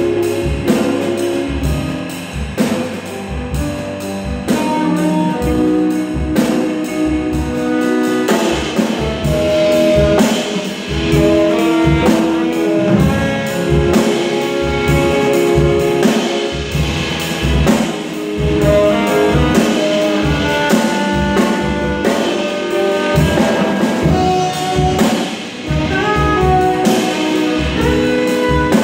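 Jazz quartet playing live: saxophone, hollow-body electric guitar, grand piano and drum kit. Steady drum hits run throughout, and a held melody line comes in about eight seconds in.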